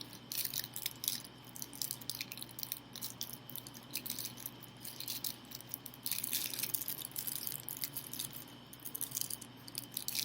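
Small screws being fitted back into a switch plate cover by hand: a run of light clicks and taps, busiest about six seconds in.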